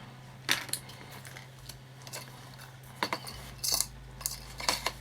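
Scattered sharp clicks and light metallic taps, about seven in all, from hands working a lighter, solder and wire held in a small clip.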